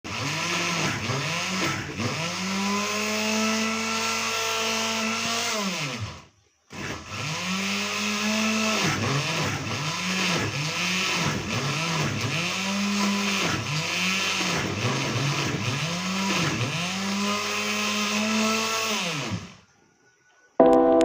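Electric kitchen blender running, its motor pitch dipping and recovering over and over as the load shifts. It stops briefly about six seconds in, starts again, and stops near the end.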